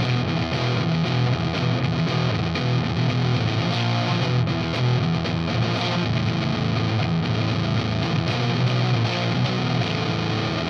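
Electric guitar played through a Sola Sound Mk IV Tone Bender fuzz pedal, steady distorted riffing with thick low notes.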